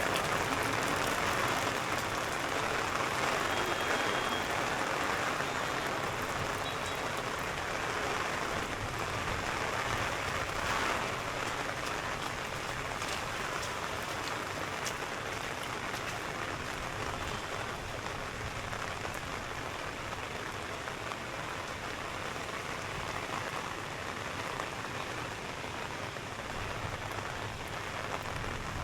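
Steady rain falling, a continuous even hiss of drops on hard surfaces that eases slightly over the stretch.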